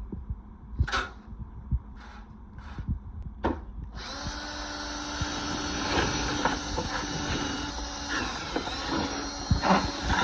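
A few light knocks, then about four seconds in a motor-driven machine starts and runs steadily with a hum and a hiss.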